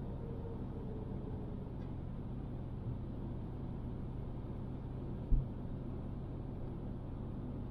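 A car driving along a paved road: a steady low rumble of engine and tyre noise, with one brief low thump about five seconds in.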